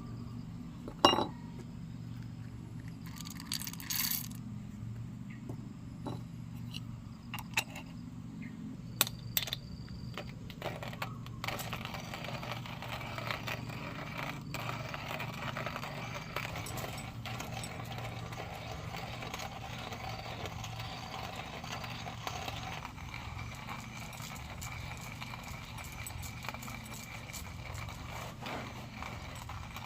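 A few sharp clicks and clinks, the loudest about a second in, over a steady low hum; from about eleven seconds a steady hiss joins in.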